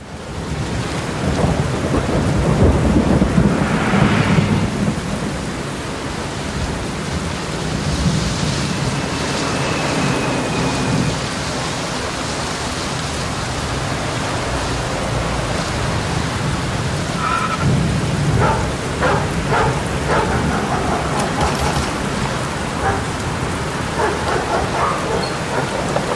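Thunderstorm: steady rain with several low rolls of thunder, the strongest a few seconds in.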